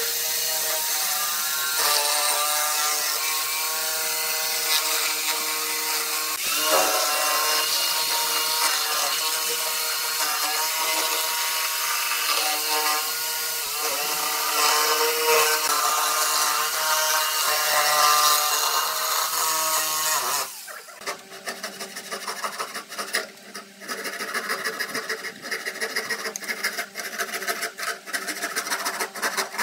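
Electric jigsaw cutting through pallet boards, its motor whine wavering as the blade works along the curve. About twenty seconds in it stops, and a hand file scrapes the cut wood edge in quick repeated strokes.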